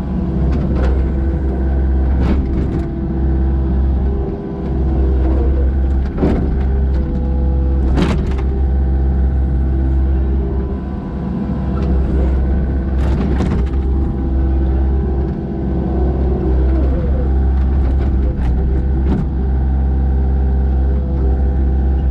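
Mini excavator's diesel engine running steadily under load while digging dirt, with a handful of sharp clanks scattered through.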